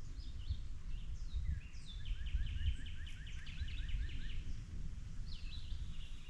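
Wild birds singing: scattered short chirps, and in the middle one bird's rapid trill of about a dozen quick repeated notes lasting a couple of seconds, over a steady low rumble.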